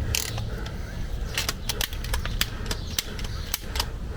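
Hand pop-rivet tool being squeezed repeatedly to set a rivet in sheet metal, giving sharp irregular clicks a few times a second. A low wind rumble on the microphone runs underneath.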